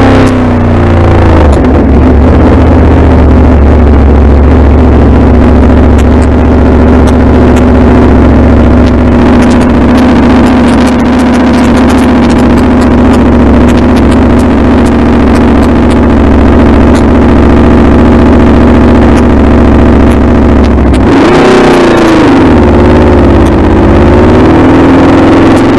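Aprilia Tuono V4's V4 engine dropping in revs as the bike slows, then idling steadily for about twenty seconds while stopped. Near the end the revs rise as it pulls away, dip once, then rise again.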